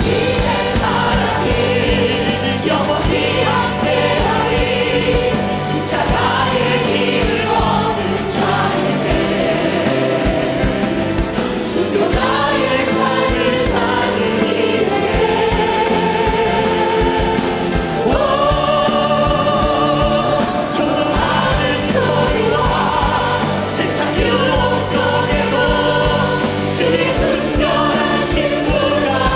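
Many voices singing a Korean worship song together with band accompaniment: steady bass notes under the melody and occasional cymbal crashes.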